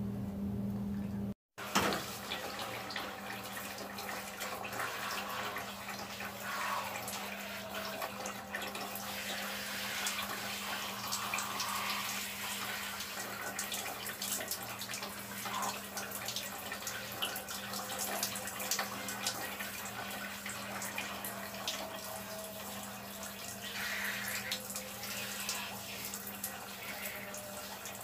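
Water spraying from a handheld shower hose and splashing onto clothing and the floor: a continuous hiss with irregular splatter, starting after a brief silent break near the start.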